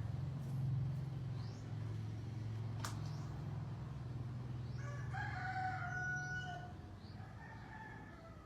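A rooster crowing: one drawn-out call about five seconds in, over a steady low hum.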